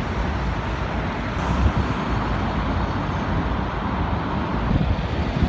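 Steady city road traffic noise: a continuous rumble of motor vehicles passing on a wide road.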